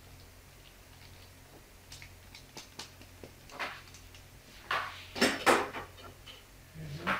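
Metal potato masher crushing boiled cauliflower in a dish: soft clicks, then several sharper knocks of the masher against the dish, the loudest about five seconds in.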